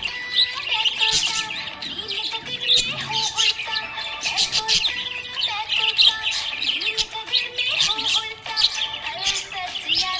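Budgerigars chirping and warbling continuously in a dense, overlapping chatter of quick high notes.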